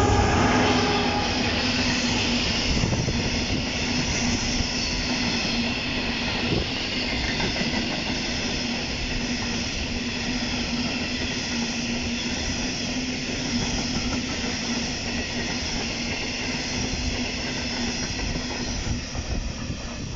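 A train running past: steady rail and running noise with a low steady hum, loudest at the start and dropping off near the end.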